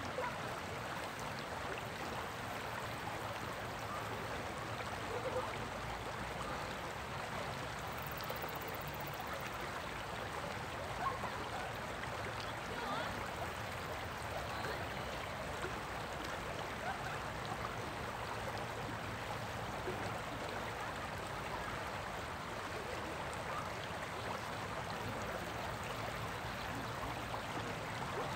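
Water running over the stones of a shallow, rocky stream riffle, a steady, even rush.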